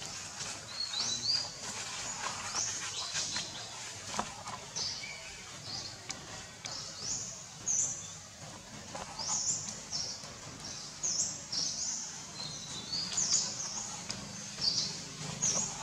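Birds chirping: short, high calls repeating every second or so over a steady background hiss.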